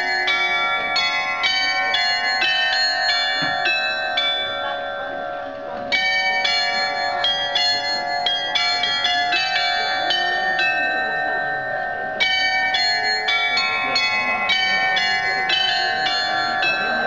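Tower glockenspiel of small hanging bells playing a tune: quick successive strikes, several a second, each ringing on, with short pauses between phrases about four and eleven seconds in.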